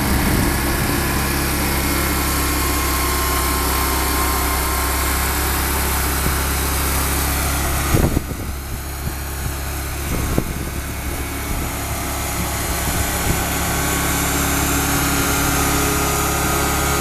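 Vermeer SC372 stump grinder's Vanguard V-twin petrol engine running steadily, a little quieter for a few seconds midway, with a single knock about eight seconds in.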